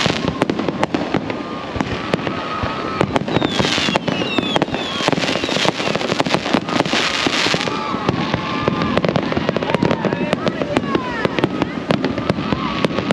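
Fireworks going off in quick, irregular succession: many sharp bangs and pops over a continuous crackle, with people's voices underneath.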